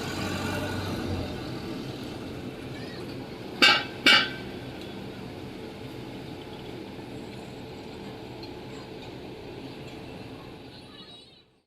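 Steady background hum of traffic, with two sharp metallic clinks close together about four seconds in; the sound fades out near the end.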